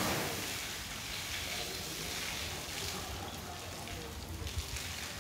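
Water from a garden hose running and splashing over an elephant's trunk and legs onto a wet concrete floor: a steady hiss of spray and splatter.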